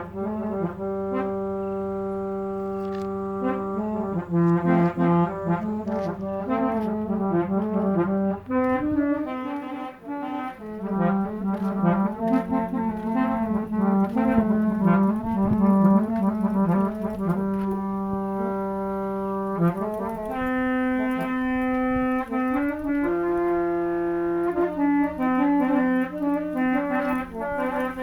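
Musical vehicle horns (klakson) played as a tune: loud, brassy pitched horn notes held and switched in steps, often two notes sounding together.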